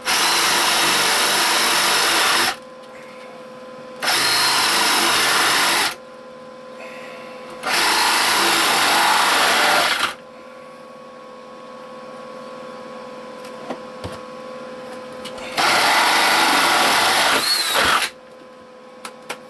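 Cordless drill boring a hole through a hardwood frame piece, running in four bursts of about two to two and a half seconds each with pauses between. The drilling is stopped every so often to let the bit cool in the harder wood.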